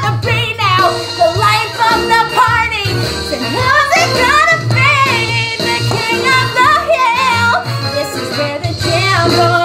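Show-tune music: a woman singing over the band's backing track.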